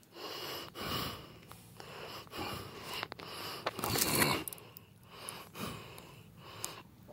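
Bubble wrap being handled and pulled around a belt, rustling and crinkling in uneven swells with a few sharp clicks.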